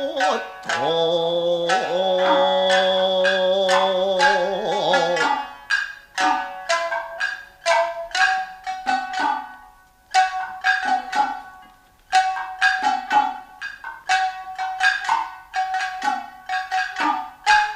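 Nagauta music: a singer holds a long wavering note for the first five seconds, then the shamisen play an instrumental passage of sharply plucked, quickly decaying notes.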